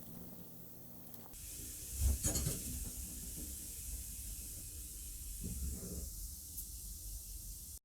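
Red-hot metal ball sizzling against a noodle: a steady hiss starts suddenly about a second in and carries on, with a couple of soft low knocks.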